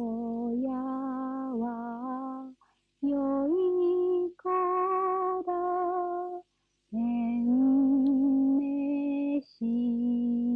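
A woman singing a Japanese lullaby unaccompanied, from a field recording: slow, long-held notes with a slight waver, in phrases broken by short breaths about every two to three seconds.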